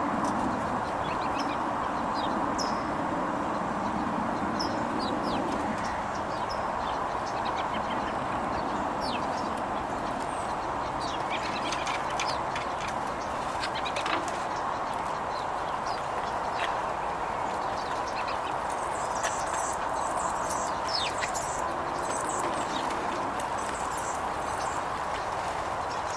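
Small birds chirping in short, high notes scattered throughout, with a denser burst of twittering about three quarters of the way in, over a steady background hiss of outdoor noise.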